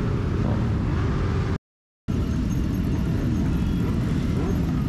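Motorcycle engines running in a loud, steady low rumble, cut off by a brief dropout to silence about a second and a half in before the rumble resumes.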